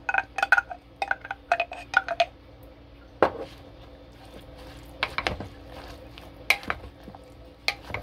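Plastic spoon stirring and knocking in a ceramic slow-cooker crock: a quick run of about ten ringing clinks in the first two seconds, then scattered single knocks as the bread, apples and jam are mixed.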